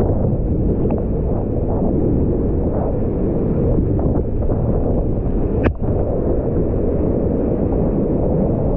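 Class IV+ whitewater rapids rushing steadily and loudly around a kayak, muffled, with little high end. A single sharp knock comes about five and a half seconds in.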